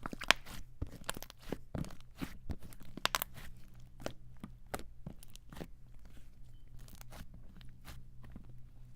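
Slime being squished and poked by hand, giving a run of irregular sticky clicks and crackles, thickest over the first few seconds and thinning out after.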